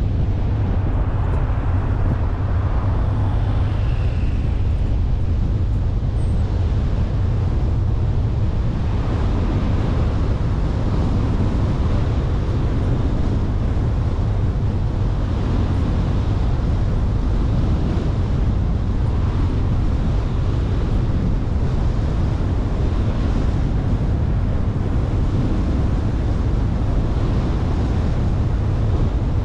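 Car driving at a steady pace: continuous tyre and road noise with a low wind rumble on the microphone.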